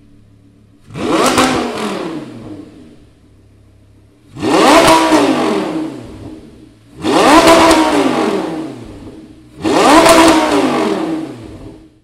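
Lamborghini Gallardo LP560-4's V10 engine, fitted with a Fi Exhaust valved cat-back system with X-pipe, revved four times from idle. Each blip rises sharply, falls back over about two seconds and settles to idle between revs.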